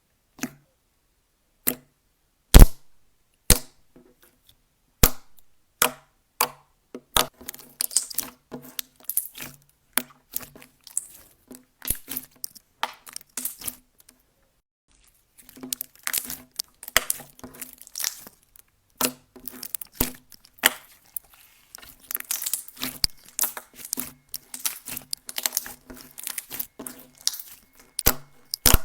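Slime being handled close up, giving sharp snapping pops and crackles. There are a few separate snaps at first, then denser crackling with a brief pause about halfway through.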